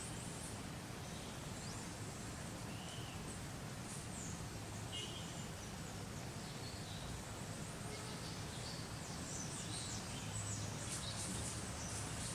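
Steady hiss of rain with scattered short, high bird chirps, which come more often near the end.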